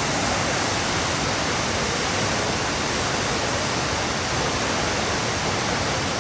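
Waterfall rushing close by: a steady, even hiss of falling water with no breaks.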